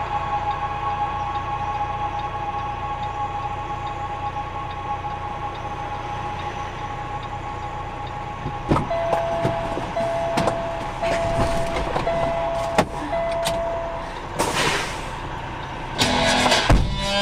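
Semi-truck cab interior with the engine idling as a steady low hum. About halfway through come scattered knocks and clicks and a run of five short, evenly spaced beeps, then a brief burst of hiss. Guitar music starts near the end.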